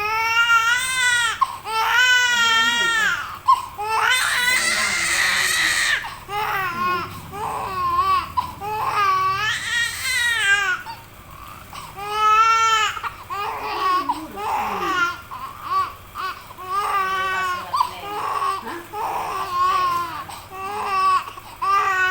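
Small child crying hard in repeated wails with short pauses for breath, a few breaking into a hoarse scream.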